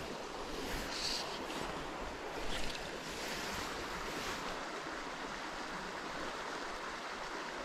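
Steady rushing of a small mountain creek running over a shallow riffle, with a short louder noise about two and a half seconds in.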